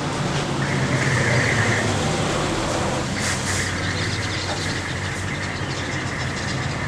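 A steady low engine rumble with a high whine that comes and goes.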